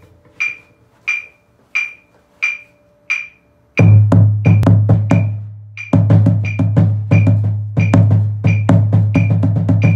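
A metronome clicking steadily at about 90 beats a minute; about four seconds in, a marching bass drum begins, struck with a mallet in time with the clicks for a timing exercise. The strokes stop for about a second and then carry on steadily.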